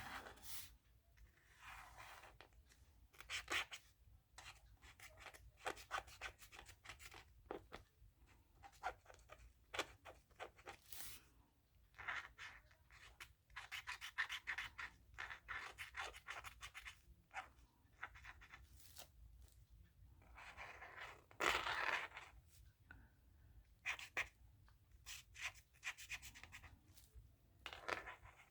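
Pump-style paint marker tip rubbing and scratching over a painted surface in short, faint, irregular strokes with small clicks, as an area is coloured in.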